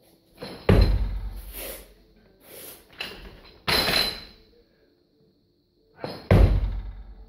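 Several heavy thuds from a barbell with rubber bumper plates and the lifter's feet on the weightlifting platform, each ringing on briefly in the hall, with lighter metallic rattles between them. The loudest comes about six seconds in, as the bar is pulled from the floor.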